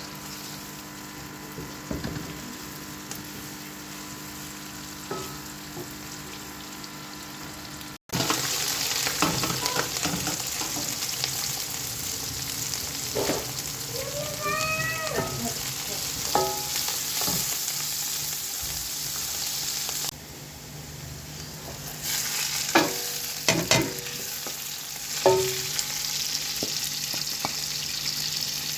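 Food sizzling and frying in a pan on the stove, with clinks and scrapes of a utensil stirring it. The sizzle gets louder about a third of the way in, and there is a short squeak about halfway.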